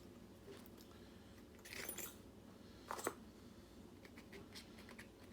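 Faint handling of small metal lock-picking tools and lock parts: a few light clicks and rattles, the clearest about two and three seconds in.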